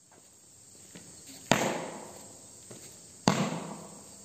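Two sharp bangs about two seconds apart, each dying away over about half a second, over a faint steady hiss.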